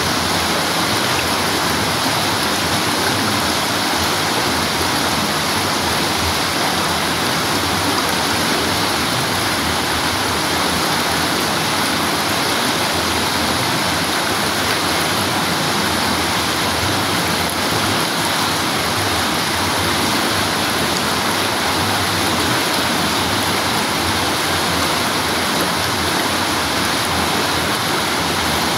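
River water rushing over a small rocky cascade and around boulders, heard close up: a steady, even wash of splashing water.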